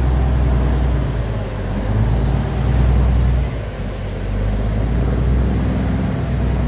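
Canal passenger boat's engine running steadily as the boat travels along the canal, a deep, even drone with a rushing hiss of water and wind over it.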